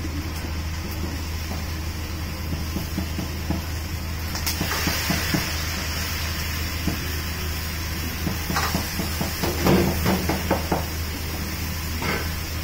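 Cabbage and pork stir-frying in a carbon-steel wok over a steady low hum. About four seconds in, broth is poured into the hot wok and it hisses and sizzles in a burst of steam. Later come clusters of clanks from the metal ladle against the wok.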